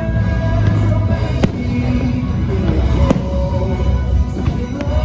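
Fireworks show: firework bursts cracking, with sharp reports about every second and a half over a deep rumble, set to a loud orchestral-style show soundtrack.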